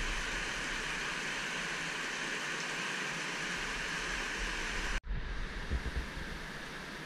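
Steady rush of flowing canyon water, an even hiss with no pitch to it. It cuts out for an instant about five seconds in, then carries on a little quieter with a few low bumps.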